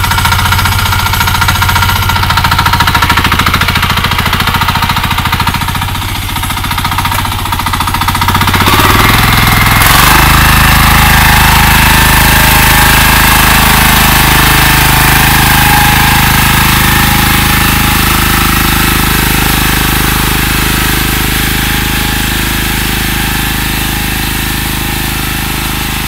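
Kipor single-cylinder diesel walking tractor running under load while ploughing, with a fast steady rapping. About ten seconds in its note shifts and gets louder, then it slowly fades as it moves off.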